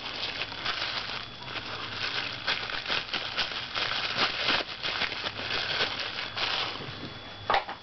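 Packaging rustling and crackling as a red dot sight is pulled out of its box, with many small irregular clicks and rattles and a sharper click near the end.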